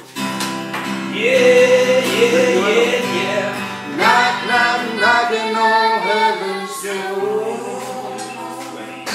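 Acoustic guitar strummed with voices singing along, the sung melody sliding up and down over held chords.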